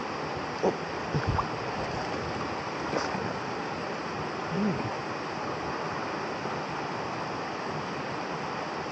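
River water flowing steadily, with a few brief knocks in the first few seconds.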